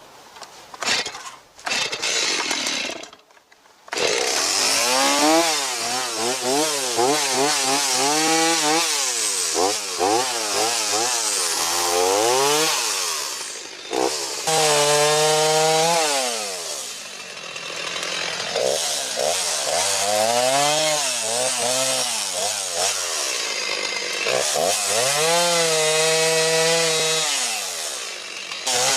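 Two-stroke chainsaw cutting firewood, its engine revving up and dropping back over and over as it goes into and out of the wood. It stops briefly about three seconds in, then runs on. The bar has been filed to remove its flared burr and is cutting well.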